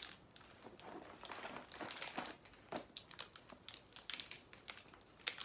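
Plastic protein-bar wrapper crinkling in short, scattered bursts as it is handled.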